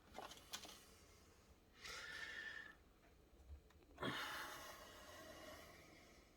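A man breathing out heavily twice, soft hissy sighs, the second longer and fading away slowly.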